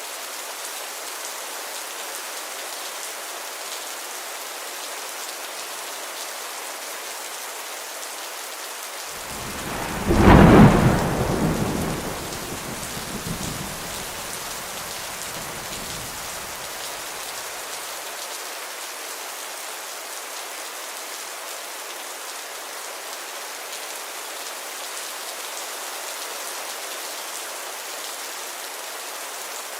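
Steady heavy rain, with a thunderclap about ten seconds in, the loudest thing here, rumbling away over the next several seconds before the rain alone goes on.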